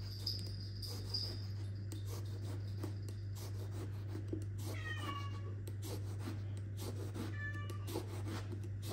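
A kitchen knife slicing into a whole aubergine on a wooden chopping board, with faint soft taps, over a steady low hum. Twice there is a short, high-pitched whining call, about five seconds in and again about two and a half seconds later.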